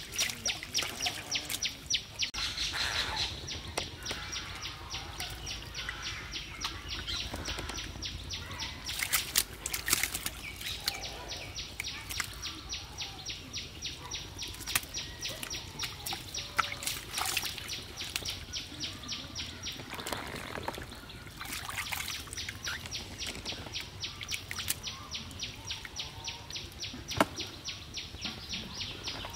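Catfish thrashing and splashing in a shallow muddy puddle, with wet slaps and sloshes now and then. Behind them runs a fast, even ticking chirp, several pulses a second, that pauses twice.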